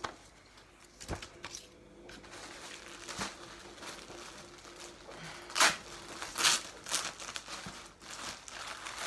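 Plastic wrapping crinkling and rustling as clothing is handled and unwrapped, with several sharper crackles, the loudest about halfway through.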